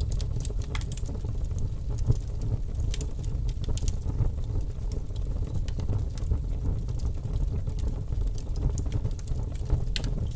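Burning wood fire with large flames: a steady low rumble of the flames with irregular sharp crackles and pops from the wood, the sharpest about two seconds in.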